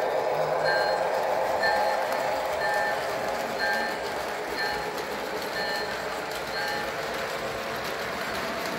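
Model train running on three-rail track with a steady rolling rumble, under short electronic two-tone beeps that repeat about once a second.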